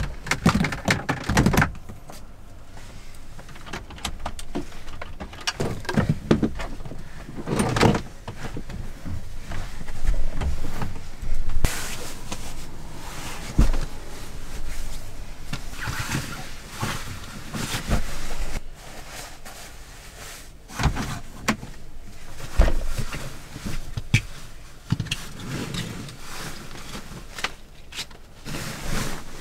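Rustling and handling of a nylon sleeping bag and its stuff sack, with straps being pulled and a few sharp knocks.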